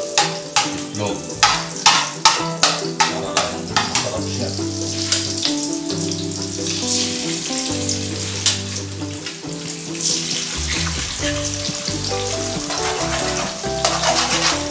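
A metal spoon scrapes and clinks against an aluminium wok in quick strokes, about three a second, while garlic, onion and chili sizzle in hot oil. After about four seconds the stirring mostly stops and the frying sizzles on as eggs go into the oil. The scraping starts again near the end, over background music.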